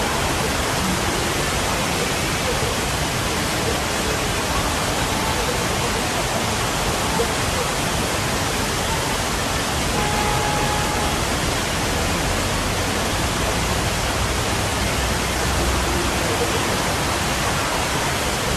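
Man-made waterfalls cascading over artificial rockwork into a lagoon: a steady, even rush of falling water.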